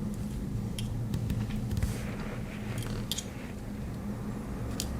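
A few faint, sharp clicks and light metal handling noises from a Swiss Army knife's tools being handled, over a steady low hum.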